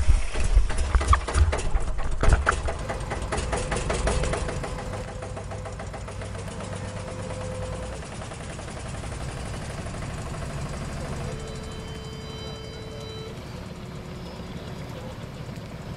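Water splashing and churning around a camera at the surface, choppy and loudest in the first few seconds, over a low engine rumble. After about eight seconds a boat's engine runs steadily and more quietly as the boat cruises by.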